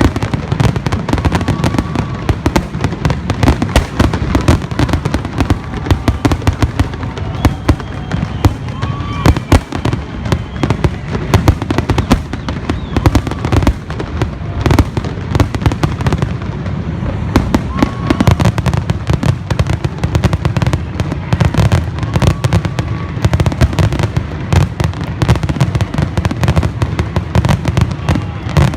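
Fireworks display in full barrage: a dense, continuous volley of shell bursts and crackling bangs in quick succession.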